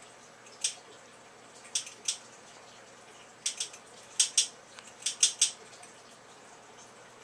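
Light metallic clinks of a cat's collar tag against its collar ring as the cat moves its head: about ten short ticks, single and in quick pairs and clusters, over faint room hum.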